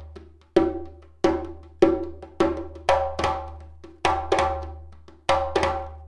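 Dugura-wood djembe played with bare hands: about ten single strokes at an unhurried pace, each one ringing and dying away, with a short gap near the start and another near the end. A faint steady low hum runs underneath.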